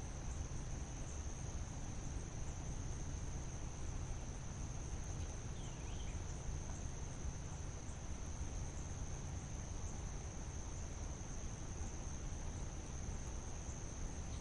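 Insects trilling in one steady, high-pitched tone over a faint low rumble.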